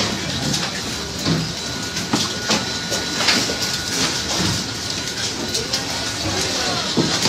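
Poultry processing line machinery running with a steady noisy din, irregular clicks and clanks, and a faint steady high whine.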